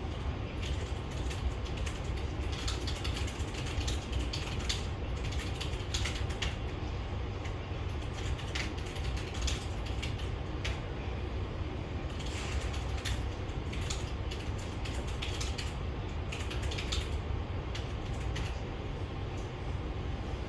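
Irregular light clicks and taps over a steady low rumble.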